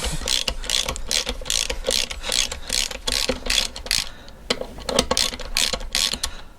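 Socket ratchet being worked back and forth to undo a nut on the engine's crankshaft, about four quick clicking strokes a second, with a brief pause partway through.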